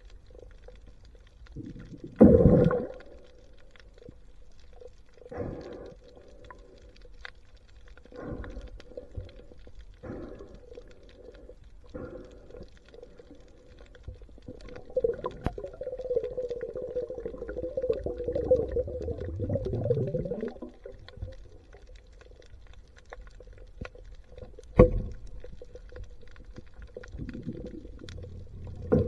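Muffled underwater sound of a diver swimming: dull thumps and gurgles every two or three seconds, and a longer warbling gurgle lasting about six seconds in the middle. A sharp knock comes near the end.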